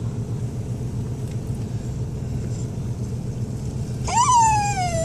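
A dog's excited whine: about four seconds in, one loud high cry jumps up in pitch and slowly slides down. It sits over the steady low rumble of a moving car heard from inside.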